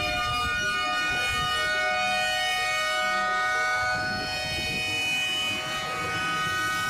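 Tsunami warning siren wailing steadily in a chord of several tones that slowly sag lower in pitch.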